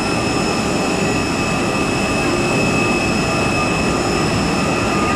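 Airbus A380 jet engines running steadily, a loud even noise with a steady high whine over it.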